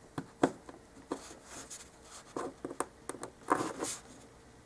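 Hands handling a foam-core dollhouse room box and its tape wire: scattered light taps and clicks with short rubbing scrapes.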